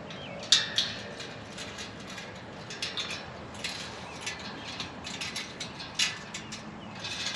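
Metal chains of a portable disc golf basket clinking as they are clipped onto the basket's top ring: a series of sharp metallic clicks and jingles, the loudest about half a second in.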